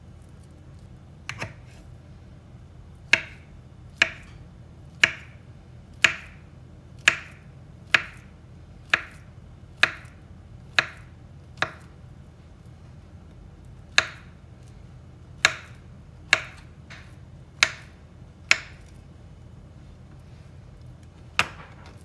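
Kitchen knife slicing a peeled banana into rounds on a wooden cutting board, each cut ending in a sharp tap of the blade on the board, about one a second, with a short pause about two-thirds of the way through.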